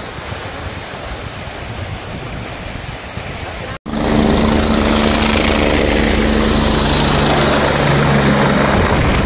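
A fast glacial river rushing under a footbridge. After an abrupt cut comes a much louder helicopter flying low close by, its rotor and turbine running with a steady hum under the rotor noise.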